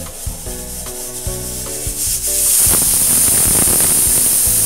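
Aluminium pressure cooker on a high gas flame letting off steam through its whistle weight, a loud steady hiss that starts about two seconds in. It marks one of the whistles that count the cooking once full pressure is reached.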